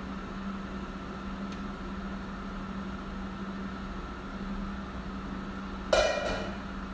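Steady hum of a kitchen fan. About six seconds in, one sharp metallic clink rings briefly.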